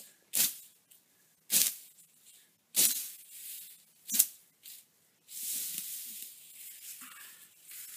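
Condor bush knife blade slashing through dry grass: four sharp swishing cuts about a second apart, then a longer rustling of dry grass being pulled and gathered by hand.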